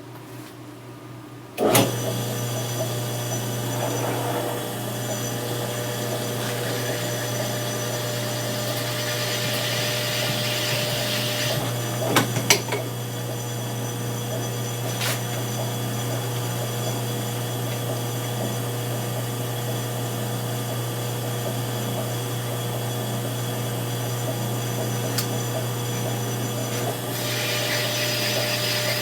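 A power tool's motor switches on a couple of seconds in and runs at a steady hum, with bursts of hissing cutting noise in the middle and again near the end, and a couple of sharp clicks partway through.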